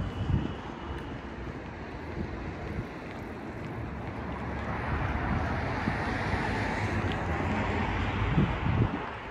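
Road traffic: a vehicle passing, its tyre and engine noise swelling about halfway through and fading near the end, over a steady low traffic rumble with wind buffeting the microphone.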